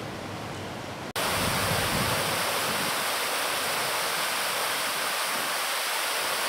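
A loud, steady rushing noise with no rhythm or pitch, cutting in abruptly about a second in.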